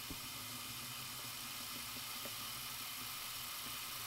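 Kitchen faucet running a steady stream into a stainless steel RV sink, flushing pink winterizing antifreeze out of the water lines.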